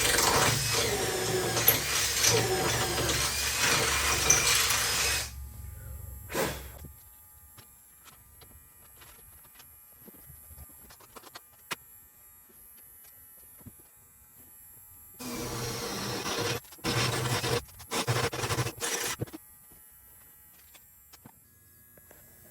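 Small handheld electric power tool, drill-like, running in two spells: a steady run of about five seconds at the start, then a stop-start series of short bursts from about fifteen seconds in, with quieter handling in between.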